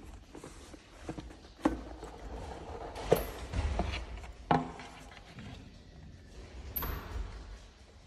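A cardboard gift box being handled and its lid pulled off: several sharp knocks with scraping and rustling of cardboard between them.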